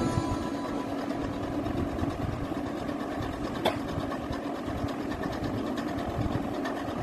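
Coloured pencil scribbling on drawing paper in rapid back-and-forth strokes, a steady dry scratching, with one sharp click about halfway through.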